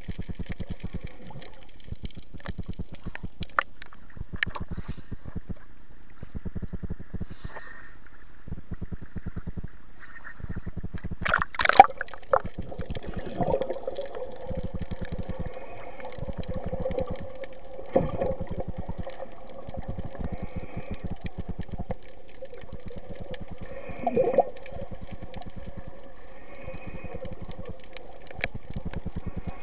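Underwater sound picked up by a submerged camera: a constant fine crackling, a steady low hum, and a few louder watery surges about every six seconds.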